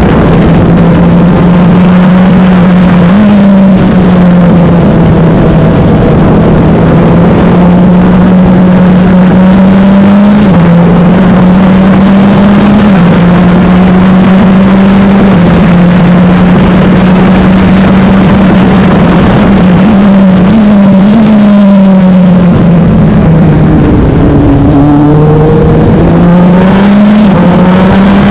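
Wolf GB08 race car engine running hard at high revs through a lap, loud and continuous, its pitch stepping up and down with gear changes. Around two-thirds of the way through it drops lower, as on braking for a corner, then climbs back as the car accelerates.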